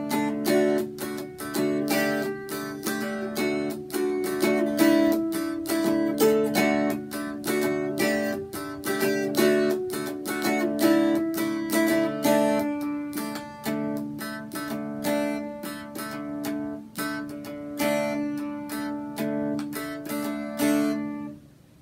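Mountain dulcimer strummed in a fast, steady rhythm, a melody over ringing drone strings; the playing stops abruptly near the end.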